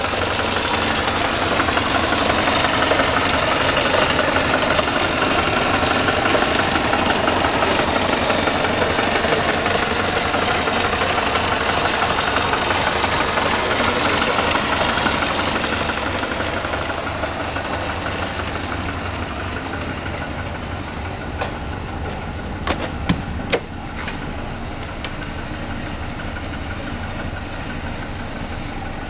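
Alfa Romeo Giulia 1300 TI's twin-cam four-cylinder engine idling steadily with the bonnet open. The sound drops in level a little past halfway, and a few short sharp clicks come near the end.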